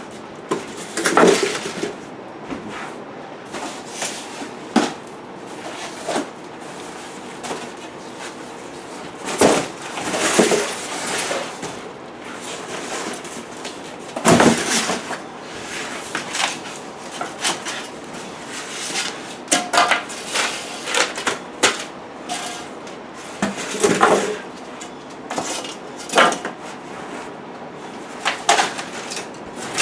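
Irregular knocks, clatters and scrapes of things being handled and moved, with a few short rustling sweeps between them.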